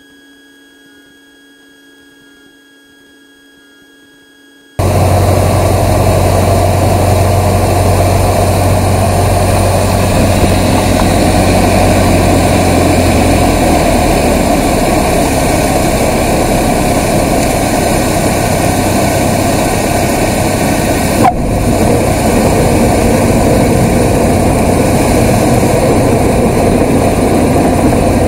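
Loud steady cabin noise of a Cessna 150 rolling out on the runway after landing: its Continental O-200 engine running near idle, with propeller and airflow noise. It starts suddenly about five seconds in, after a faint steady hum, and the deep part of the drone eases a little about halfway through; there is one brief click shortly after that.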